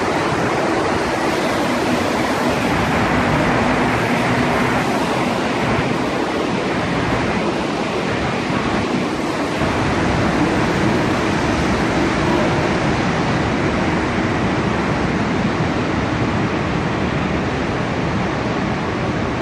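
MR-63 rubber-tyred metro train running past along the platform, a steady rolling rush of tyre and running-gear noise that eases slightly near the end as the last car pulls away.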